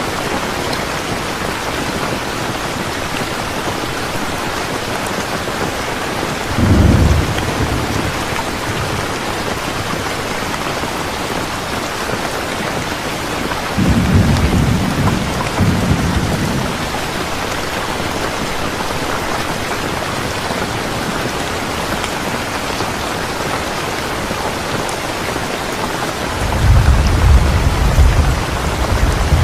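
Steady heavy rain falling, with thunder rumbling low three times: briefly about a quarter of the way in, longer around the middle, and again near the end.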